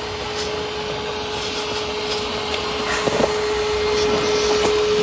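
A small electric motor running at a steady speed: a constant whirring hum at one pitch, with a few light knocks about three seconds in.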